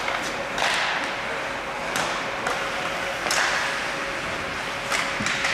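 Ice hockey play on an indoor rink: skate blades scraping the ice with several sharp clacks of sticks and puck spread through, over a faint steady hum.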